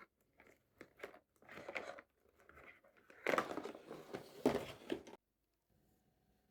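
Toy packaging crinkling and tearing in a run of irregular rustles as a play set is unboxed, the loudest near the middle, stopping about five seconds in.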